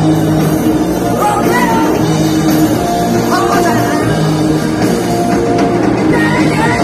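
A rock band playing loudly live through a concert PA: electric guitar with a singing voice over a steady, dense backing.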